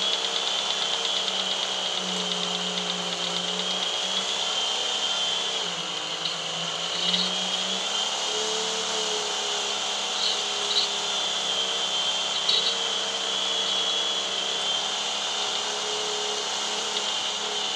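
TM 130 snowmobile-trail groomer running steadily while towing its grooming drag through snow. The engine pitch wavers slightly, and a few light knocks come through.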